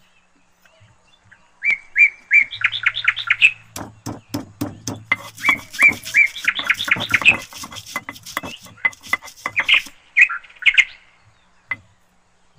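A small bird chirping in quick runs of short, repeated high notes, mixed with scattered knocks and scrapes of stone on stone as spices are worked on a stone grinding mortar.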